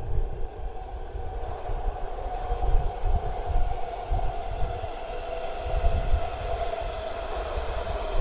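Washington Metro subway train approaching through the tunnel into an underground station: a low rumble with a whine that grows stronger after a couple of seconds and slowly falls in pitch.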